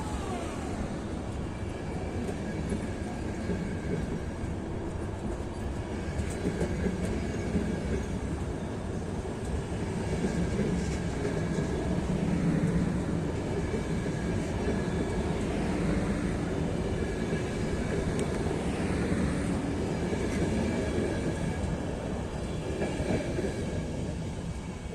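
Intercity passenger train behind a ČD class 151 electric locomotive rolling through the station. A steady rumble of wheels on rail runs throughout, with faint clickety-clack and thin high wheel tones, loudest about halfway through.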